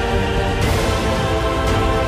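Background music with held notes over a strong, steady low end; the sound turns brighter about half a second in.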